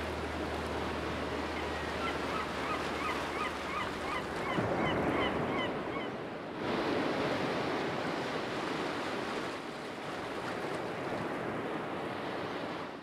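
Steady rushing surf-like noise, with a quick run of short, high, repeated bird calls from about two to six seconds in; it cuts off suddenly at the end.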